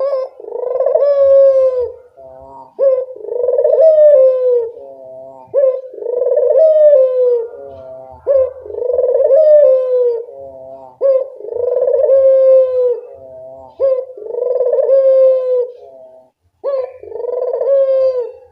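Puter dove (ringneck dove) cooing loudly and steadily, about seven times. Each coo is a short note followed by a long, slightly falling note, repeated about every three seconds.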